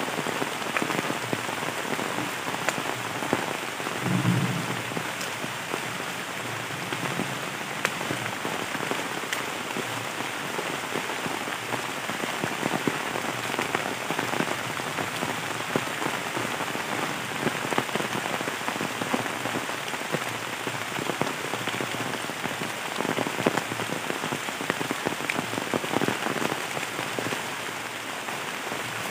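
Heavy rain falling steadily on bamboo foliage and dry leaf litter, a dense hiss full of small ticks from individual drops. A brief low bump about four seconds in.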